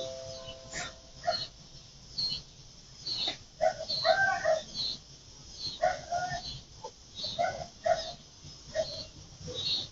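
A doorbell chime's last tone dying away, then short animal calls repeated at irregular intervals, roughly once a second.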